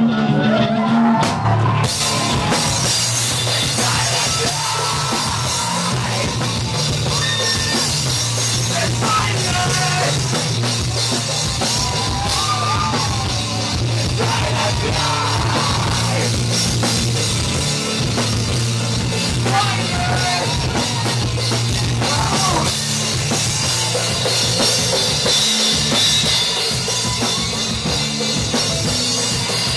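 Live rock band playing: drum kit, electric guitar and bass, loud and continuous.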